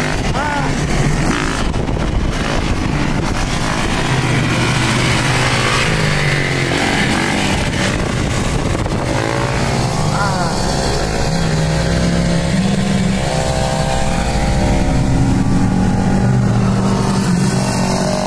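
Dirt bike engines running and revving, the pitch rising in short blips, heard from inside a following car with its own engine and road noise underneath.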